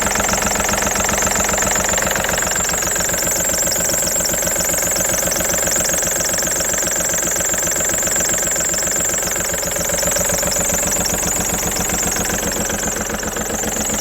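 A 2007 VW Polo's 1.4 TDI three-cylinder diesel engine idling steadily, with a rapid, even clatter and a constant high-pitched whine. This is the engine noise the owner reports as a problem.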